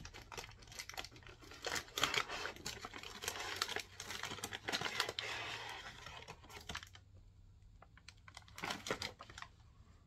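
Cardboard box and clear plastic packaging being handled: crinkling, rustling and clicking as a plastic tray is slid out of the box. It is loudest for several seconds in the middle, with a second short burst near the end.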